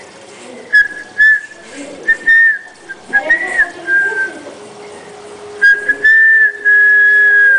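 A person whistling a clear, high note in several short phrases with small pitch bends, then one long held note over the last couple of seconds, with a few faint clicks.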